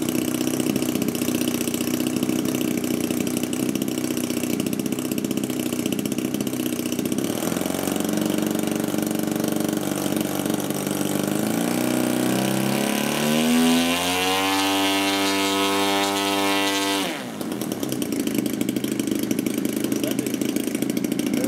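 Engine of a 37% scale Ultimate biplane model, turning its propeller while the plane is held on the ground. It idles, edges up in pitch about a third of the way in, then revs smoothly up to a high steady note for about three seconds before it is throttled back sharply to idle.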